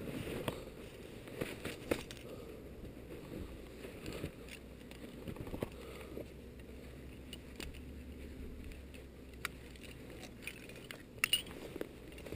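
Scattered faint clicks, scrapes and crunches of a climber's gear and boots: rope and metal carabiner handled at a bolted anchor on rock and snow, over a low rumble. A few sharper clicks come near the end.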